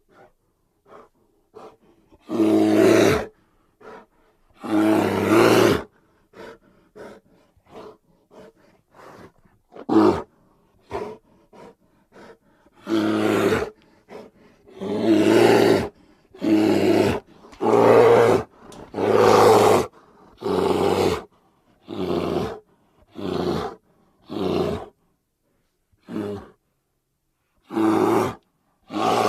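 Grizzly bear roars and growls, a long series of short separate calls with brief gaps between them: two loud roars near the start, quieter short grunts for several seconds, then a rapid run of loud roars.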